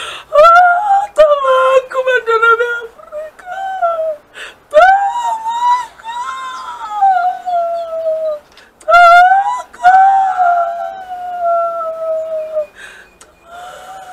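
A woman's very high voice crying out in long, wailing, gliding tones with short breaks between them, a quick warbling trill about nine seconds in: a praise poet's chanted lament.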